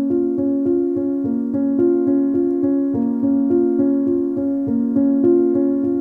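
Background music: a calm keyboard piece with sustained chords under a steady pattern of repeated notes, about three a second.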